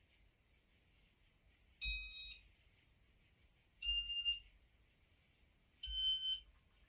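Three short electronic beep tones about two seconds apart, each a step higher in pitch than the last: a Casablanca Hermosa ceiling fan's Inteli-Touch control answering commands from its W-32 wall control.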